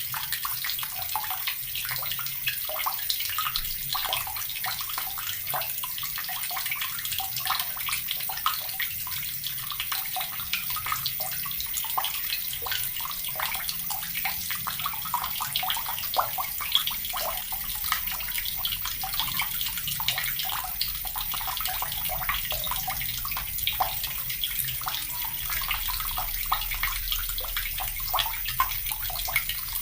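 Water running from a tap in a steady stream, splashing and spattering continuously.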